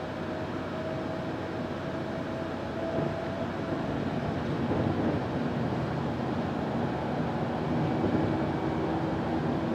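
Solaris Urbino 18 articulated city bus on the move, heard from inside the passenger cabin: steady engine and road noise. A thin whine rises slightly over the first few seconds, and a lower hum comes in later. The noise grows a little louder about four seconds in.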